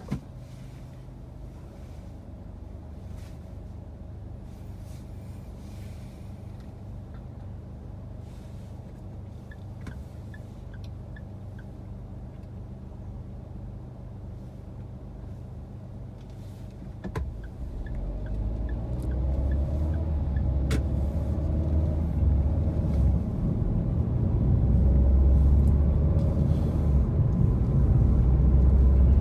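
A car's engine idles at a standstill as a steady low hum heard from inside the cabin. About 17 seconds in there is a click, and the hum gives way to a louder rumble of engine and road noise that builds as the car pulls away and gathers speed.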